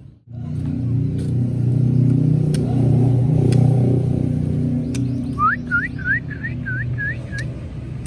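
A motor engine running steadily and loudly, with a quick string of about eight rising whistled notes from a white-rumped shama (murai batu) a little past halfway.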